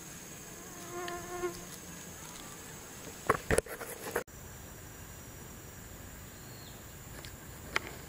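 Insects droning steadily in a high, even tone. A brief pitched tone sounds about a second in, and a short burst of sharp crackles, the loudest thing here, comes a little after three seconds, with a few more clicks near the end.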